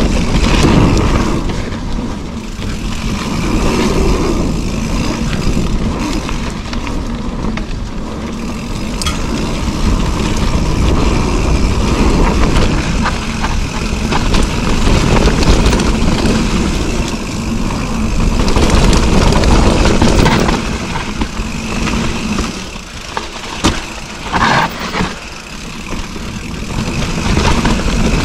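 Mountain bike riding down a dirt singletrack: wind rushing over the microphone and tyres rumbling on the dirt, swelling and easing as the speed changes, with a few sharp clatters from the bike over rough ground near the end.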